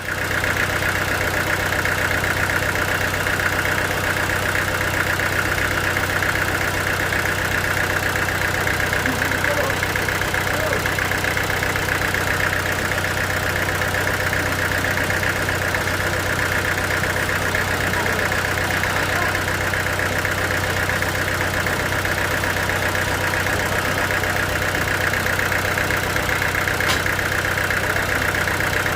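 A sawmill machine running steadily, with a low hum under a strong high-pitched drone. It steps up in loudness right at the start, then holds even.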